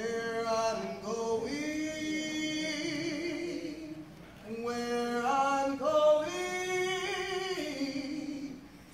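Mixed church choir of men and women singing a cappella, held chords in two phrases with a short break about four seconds in.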